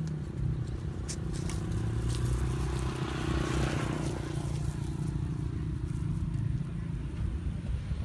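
Steady low rumble of road traffic, with a vehicle passing that is loudest about three and a half seconds in. A few light clicks about a second in.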